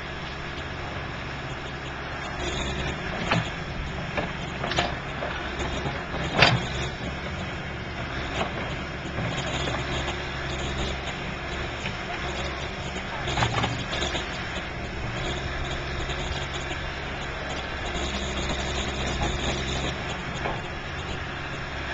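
John Deere backhoe loader's diesel engine running steadily as it digs, with occasional sharp clanks from the digging, the loudest about six seconds in.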